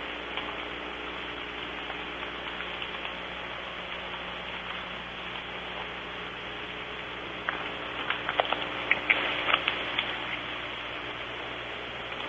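Soft rain falling: a steady hiss with scattered drop ticks, and a cluster of sharper taps about eight seconds in.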